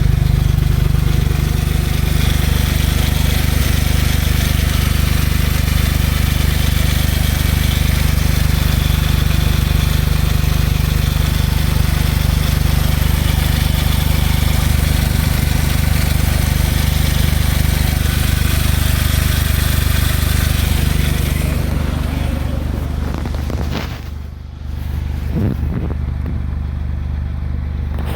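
Smart Roadster's small turbocharged three-cylinder engine idling steadily with a clacking that the owner cannot place, suspecting the valves or the timing chain. About three-quarters of the way through the sound turns duller and slightly quieter.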